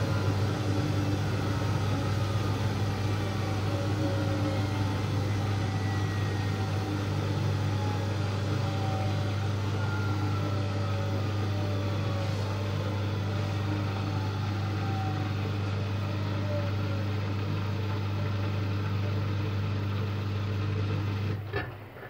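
Siemens Siwamat IQ front-loading washing machine running: a steady low hum, with faint whines slowly falling in pitch as the drum winds down. The hum cuts off with a click near the end.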